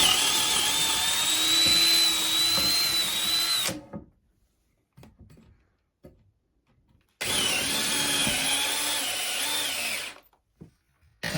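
Power drill boring out pilot holes in a wall to a larger size for toggle bolts, running with a high whine in two runs of about four and three seconds, with a pause between.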